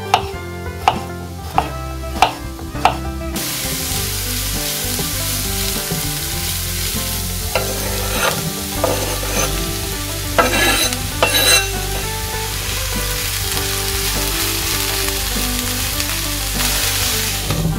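A kitchen knife chopping zucchini on a wooden cutting board, about five cuts, then diced onion and carrot frying in vegetable oil in a pan with a steady loud sizzle. About halfway through, a knife scrapes the chopped zucchini off the board into the pan with a few clatters, and the sizzle goes on.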